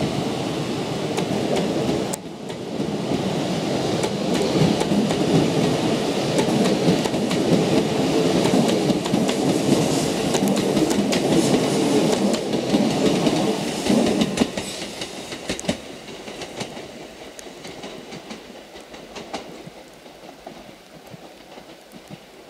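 JR East E6 series Komachi Shinkansen train departing and rolling past, with a steady rumble and wheels clacking over rail joints and points. The sound fades away over the last several seconds as the end of the train moves off.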